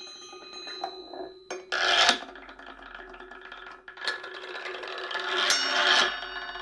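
A metal ball rolling through a tube of joined ribbed tin cans in a homemade marble run, a rasping metallic rumble. It comes in two swells: a short one about two seconds in, then a longer one that builds for about two seconds and stops.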